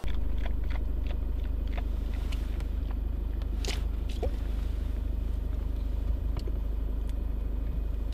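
Isuzu D-MAX driving, heard from inside the cab: a steady low rumble of engine and road noise with scattered light rattles and knocks.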